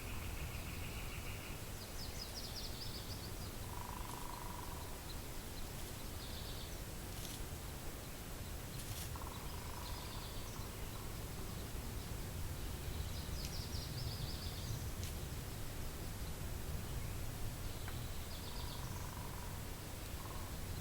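Steady low wind rumble with wild birds calling off and on: short high trills every few seconds, a few lower single notes, and a trill at the very start.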